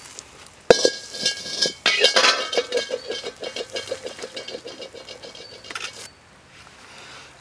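A steel wok and metal ladle clanking: one sharp ringing clang about a second in, then a fast run of metallic clinks and rattles that fade out over about four seconds.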